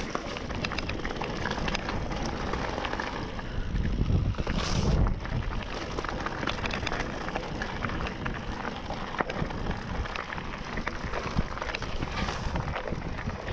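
Mountain bike rolling over a rocky, loose-gravel trail: tyres crunching over stones and the bike rattling with many small knocks, with wind buffeting the microphone, strongest about four to five seconds in.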